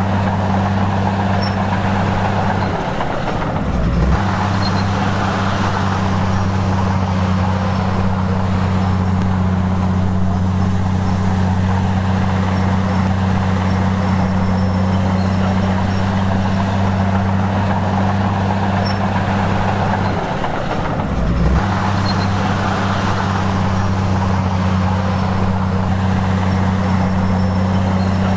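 Heavy diesel engine of earthmoving equipment running steadily under load. Its note dips briefly and comes back up twice, about three seconds in and again about twenty seconds in.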